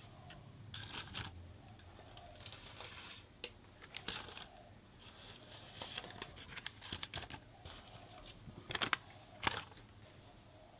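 Paper muffin liners rustling and crinkling as they are set into a metal muffin tin, with two sharp taps near the end.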